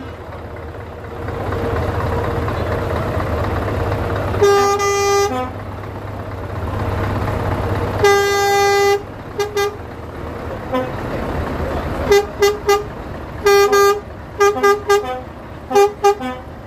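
Truck horn blasts: two long notes about four and eight seconds in, then a run of short toots from about twelve seconds on. Under them is the steady low rumble of idling truck engines.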